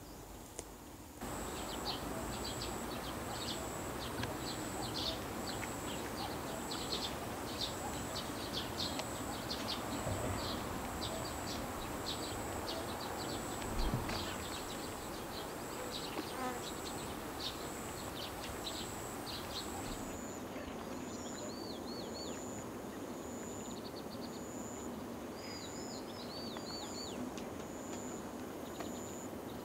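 Evening pond-side ambience of insects and birds: a steady high insect drone with many short, quick bird chirps over it. Partway through, the drone turns into a pulsing trill and a bird gives short curved whistled notes. A brief low thump sounds about halfway through.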